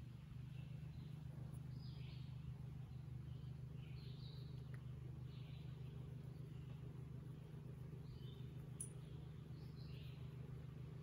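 A steady low hum, with faint short bird chirps repeating every half second to a second over it and a single faint click about nine seconds in.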